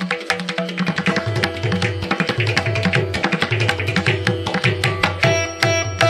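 Instrumental background music with a quick drum rhythm under held melody notes.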